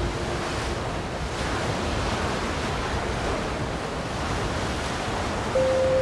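Ocean waves washing on a shore, a steady rushing surf sound; a held musical tone comes in near the end.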